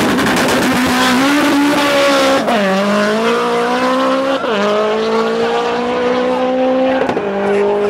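Mitsubishi Lancer Evolution's turbocharged four-cylinder accelerating hard at full throttle in a drag run. Its pitch climbs steadily in each gear and drops sharply at three upshifts, about two and a half, four and a half and seven seconds in.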